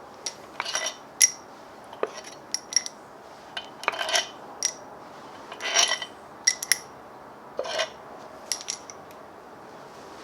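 Metal tools and engine parts clinking and clanking against each other during engine teardown: about a dozen irregular sharp strikes, some in quick pairs, each with a brief high metallic ring.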